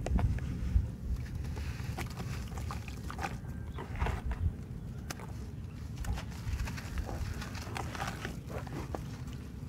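Hands crumbling and squeezing clumps of damp soil into muddy water in a plastic tub: irregular gritty crunching and crackling, with a steady low rumble underneath.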